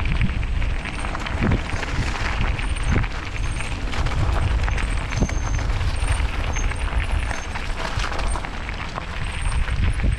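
Wind rumbling on the microphone as a mountain bike descends a dirt trail, with knocks and rattles from the tyres and bike over rough ground.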